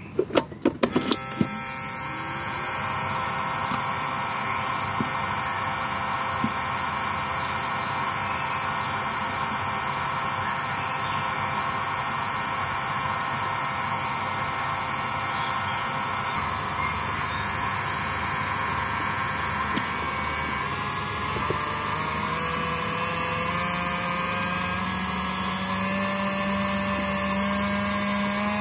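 Mini DC motor with a metal reduction gearbox, rated 25 to 50 rpm, running steadily with a gear whine, after a few sharp clicks at the start. About two-thirds of the way through, its pitch rises gradually as the supply voltage is turned up from about 3 V toward 4.6 V.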